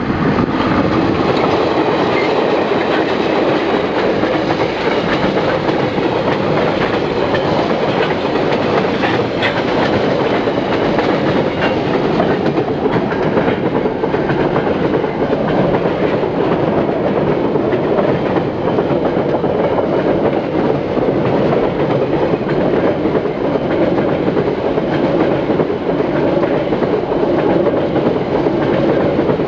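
Diesel-hauled container freight train passing close by. The locomotives come past first, then a long line of container wagons goes by with a steady rumble and clickety-clack of wheels over the rail joints.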